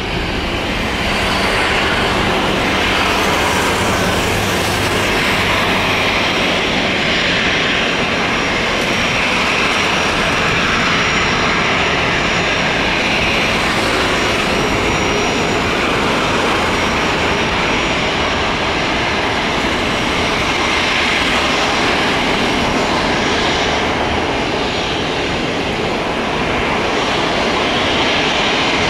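Boeing 737 Classic freighter's CFM56 turbofan engines running at low taxi thrust as the jet taxis: a steady jet rush with a thin high whine.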